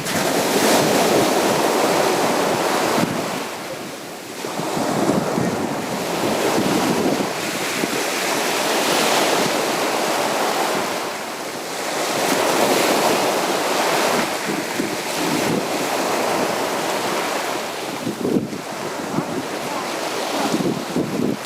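Sea waves breaking and washing on a beach: a continuous surf noise that swells and falls back in long surges every several seconds.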